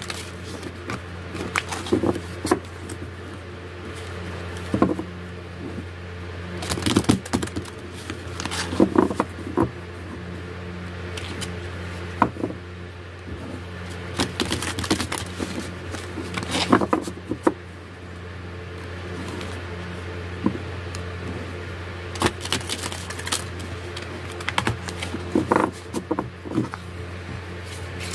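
A deck of Starry Beginnings oracle cards being shuffled by hand: irregular bursts of card rustling, riffling and tapping that come and go in clusters, over a steady low hum.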